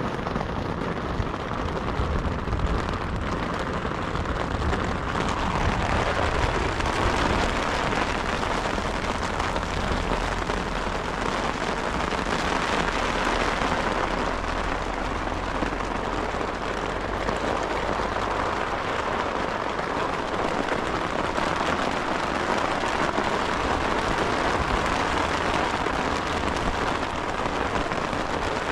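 Heavy rain falling steadily during a storm, heard from inside a shelter, with a low rumble underneath that fades out about two-thirds of the way through.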